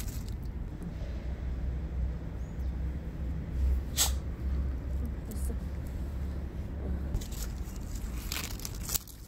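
A Shih Tzu crunching and tearing dry fallen leaves with its teeth near the end, a quick run of crackles. Before that a steady low rumble, with one sharp click about four seconds in.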